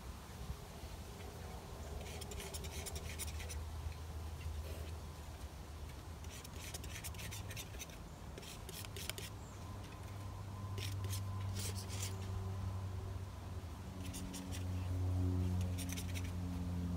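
Paintbrush scrubbing and dabbing paint onto a painting board, in about five short runs of quick scratchy strokes. A low steady hum runs underneath and grows louder near the end.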